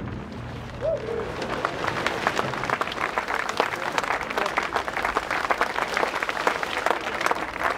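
Crowd applauding, the clapping filling in about a second in and then carrying on steadily.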